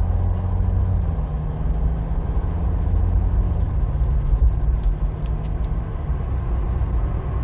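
Steady low road rumble of a car driving, heard from inside the cabin, with a few faint light rattles in the second half.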